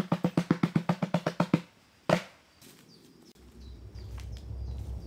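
A pitched drum beaten fast and evenly, about seven strokes a second, stops abruptly about a second and a half in. A single sharp hit follows half a second later. A low outdoor rumble with faint clicks and snaps then rises toward the end.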